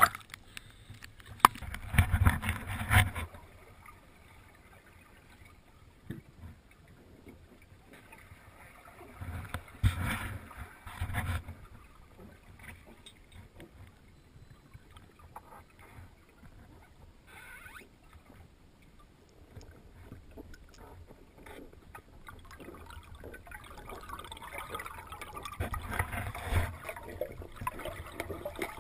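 Water sloshing and splashing around a camera at the surface, then muffled underwater noise, with louder bursts of splashing and bubbling about two seconds in, around ten seconds in, and again near the end.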